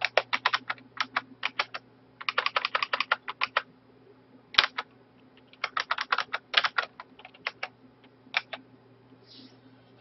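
Typing on a computer keyboard: several quick runs of keystrokes separated by short pauses, with one sharper single click about halfway through. A faint steady low hum sits underneath.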